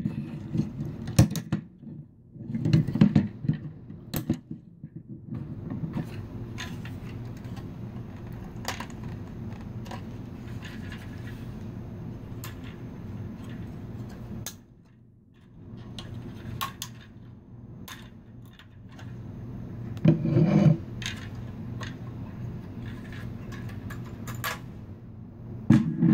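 Plastic housing of an electric meter being pried apart by hand at its snap-in tabs: scattered clicks, creaks and short scrapes of plastic, with rubbing against a wooden table and louder knocks about 3 and 20 seconds in. A steady low hum runs underneath.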